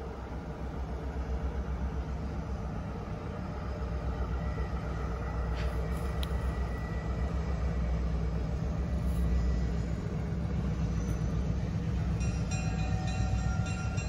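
Approaching diesel locomotive: a steady low engine rumble that grows slowly louder as the train comes closer. About twelve seconds in, a few steady high tones join the rumble.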